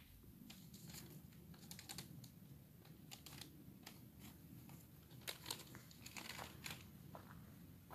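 Faint footsteps crunching on dry leaf litter and twigs, an irregular run of small crackles and clicks over a low rumble.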